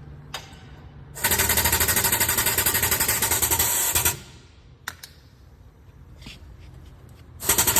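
Air-powered tool running in rapid, even hammering strokes. It runs for about three seconds, stops, and starts again near the end.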